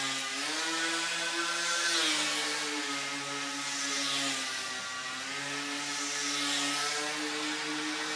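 Small RC model airplane's motor and propeller whirring, its pitch rising and falling a few times with throttle changes. The propeller noise swells about every two seconds as the plane circles on its tether.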